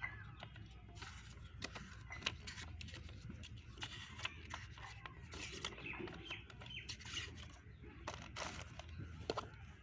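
Many short clicks and taps, with a few faint bird-like chirps and a distant voice behind them.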